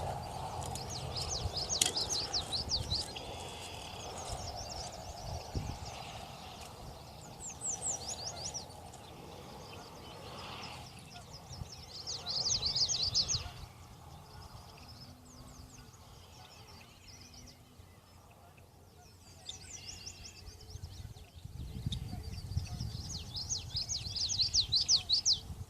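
A small songbird singing repeated rapid trills, each phrase about a second or so long, over a low outdoor rumble.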